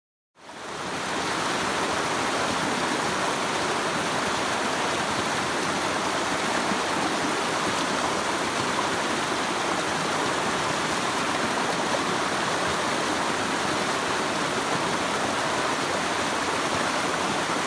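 Creek water rushing over rocks in small rapids: a steady rushing that fades in at the start and then holds.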